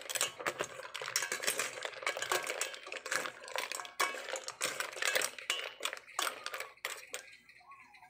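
Mussel shells clattering and clicking against each other, a metal spoon and the pot as they are stirred. The clatter dies down about seven seconds in.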